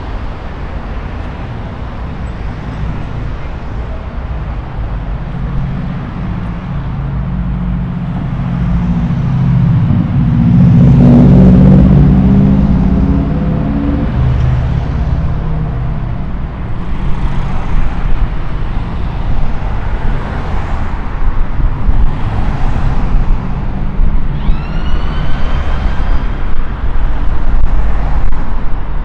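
City street traffic: a steady rumble of engines and tyres as vehicles pass. One vehicle's engine drone builds to the loudest point about a third of the way in, then fades. Near the end there is a short squeal, rising in pitch.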